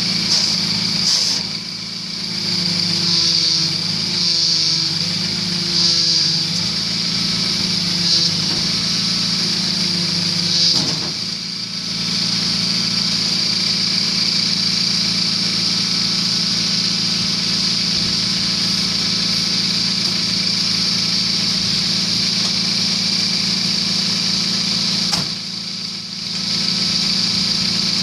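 Mini excavator's diesel engine running, its note swelling and shifting repeatedly during the first ten seconds or so as the machine is worked. It then settles into a steady run, with a brief dip about 25 seconds in.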